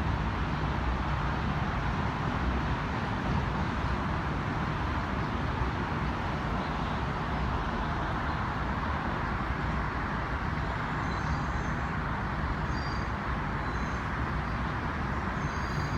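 Steady city traffic noise, a continuous even rumble with no single vehicle standing out. A few faint, short high chirps come through near the end.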